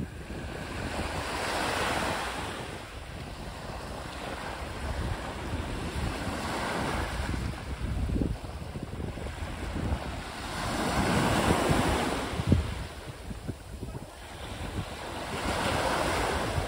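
Small sea waves breaking and washing up a sand-and-pebble shore, each wash swelling and fading about every four to five seconds. Wind buffets the microphone underneath.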